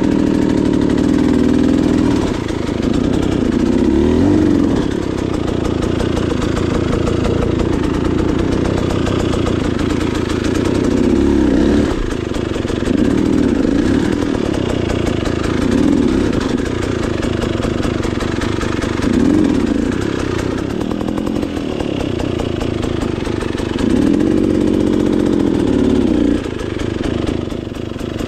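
Dirt bike engine running at low speed over rough ground, with short throttle blips every few seconds, each rising and falling in pitch.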